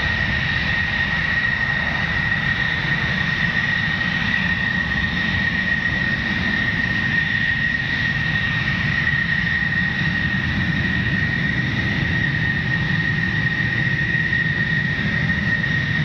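Single-engine F-16 fighter's jet engine during takeoff: a steady loud roar with deep rumble underneath and a constant high whine on top, unchanging throughout.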